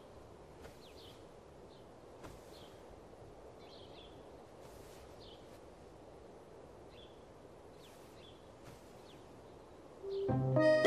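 Faint outdoor ambience with small birds chirping at irregular intervals. Accordion music comes in loudly near the end.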